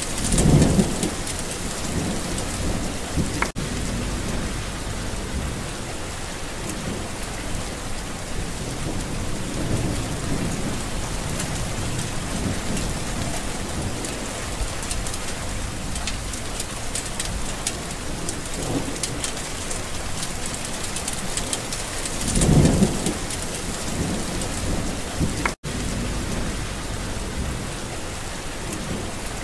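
Steady rain falling, with a low roll of thunder right at the start and another about twenty-two seconds in. The sound cuts out for an instant twice.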